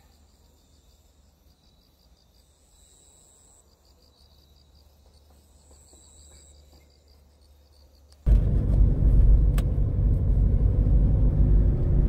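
Faint, pulsed chirping of crickets and other insects in the grass. About eight seconds in, it cuts suddenly to the loud low rumble of a car driving along a road, heard from the car itself.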